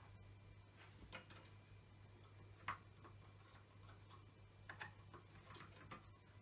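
Faint, irregular clicks and taps of a RAM module being pressed down into its slot in a Dell PowerEdge R200 server, the white retaining tabs snapping up; the sharpest click comes a little before the middle.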